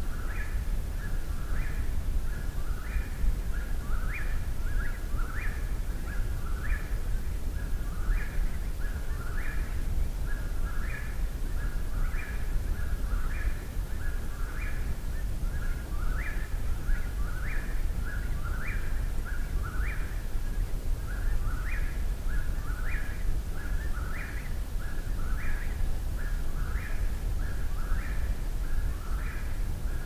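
Eastern whip-poor-will singing, repeating its short 'whip-poor-will' phrase about once a second without pause, each phrase ending in an upswept note. A steady low rumble runs underneath.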